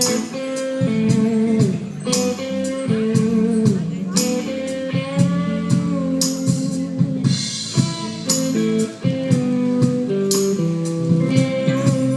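Live band music: guitar over a steady drum beat.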